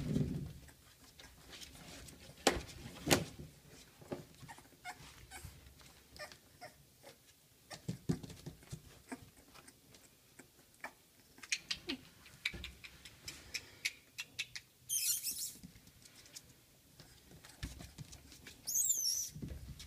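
Month-old miniature bull terrier puppies moving about their pen: many small clicks and scratches of claws on the floor and pee pads, with rustling about three-quarters of the way through and a short high squeak near the end.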